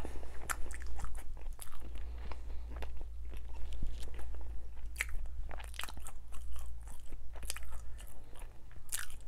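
A person chewing a mouthful of sope close to a clip-on microphone, with irregular mouth clicks throughout.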